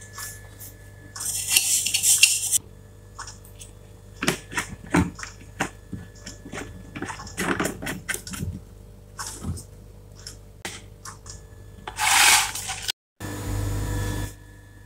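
Metal spoon clicking and scraping against a plastic tub during mixing, with two short hissy noises, one about a second in and one near the end.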